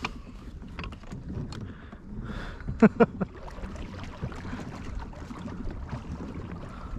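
Wind buffeting the microphone and water moving against a plastic fishing kayak, with a few sharp knocks about three seconds in.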